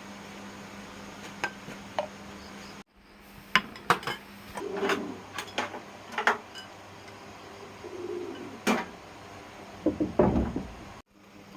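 Dishes and cutlery clinking and knocking, in a string of sharp separate clinks.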